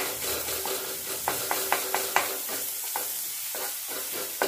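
Chopped onions and ginger-garlic paste sizzling in hot oil in a nonstick frying pan while a wooden spatula stirs them. Over the steady sizzle, the spatula's strokes against the pan give irregular sharp taps and scrapes, a few each second.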